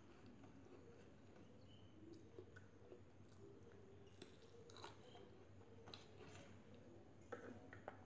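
Faint chewing and mouth sounds of someone eating a mouthful of rice by hand, with a few soft clicks scattered through.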